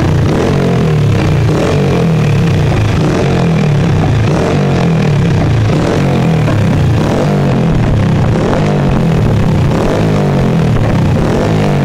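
Honda Pop 100's single-cylinder engine revved over and over through a loud Roncar aftermarket exhaust, the pitch rising and falling again and again.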